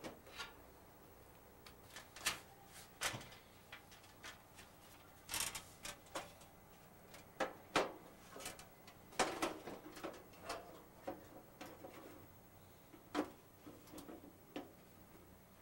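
Irregular metal clicks and clunks as a Coleman propane camp stove is handled: the steel burner tray is set into its sheet-metal case and the lid is closed over it.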